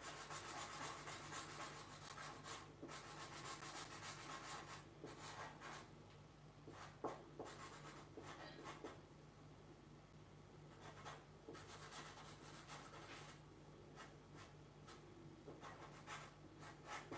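Faint rubbing and scratching of a marker tip on paper, coloring in a large solid-black area with repeated strokes. A steady low hum sits underneath.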